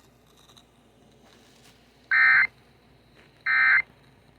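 Two short bursts of EAS SAME digital data tones from a NOAA Weather Radio broadcast, about a second and a half apart: the end-of-message signal that closes an emergency alert.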